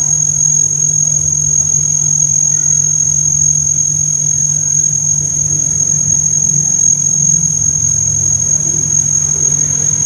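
Male cricket stridulating with its wings raised, producing a steady, unbroken, high-pitched song.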